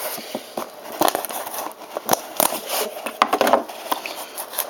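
Plastic wrapping crinkling and cardboard being handled as a sealed trading-card box is opened, with irregular crackles and small clicks.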